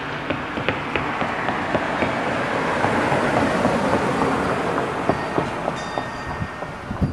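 A car driving past on the street, its tyre and engine noise swelling to a peak a few seconds in and then fading.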